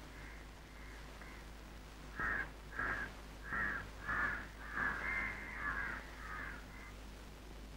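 A crow cawing repeatedly: a run of short calls roughly every two-thirds of a second, faint at first, louder from about two seconds in, then tapering off near the end.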